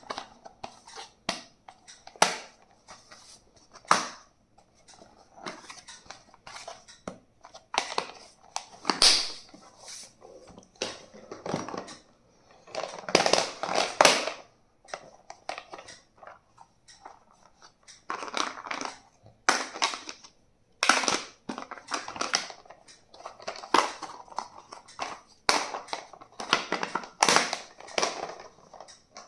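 Stationery and its packaging being handled and unpacked: irregular clicks and taps mixed with crinkling and rustling, in uneven clusters with short pauses.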